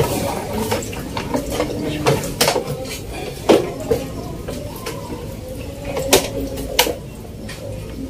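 Hard plastic knocking and clicking as the hinged top panel of a Sharp twin-tub washing machine is lifted open and handled: a scatter of short, sharp knocks, the strongest about halfway through and near the end.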